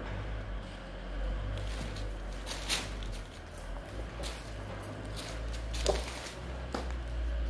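Thin cherry wood veneer sheets being handled and laid down by hand, giving a few short swishing flaps, the clearest about a third of the way in and two near the end, over a steady low rumble.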